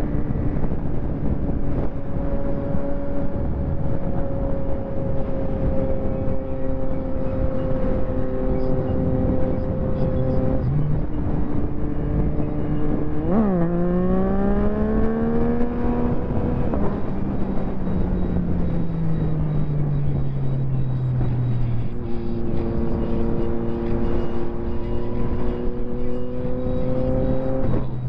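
Yamaha MT-09 SP's inline-three engine through a full Akrapovic race exhaust, under way. The engine holds a steady note, drops suddenly in pitch, then revs up sharply about halfway through. It falls away in a long slow drop in pitch, then pulls with a slowly rising note, with another sudden drop in pitch near the end.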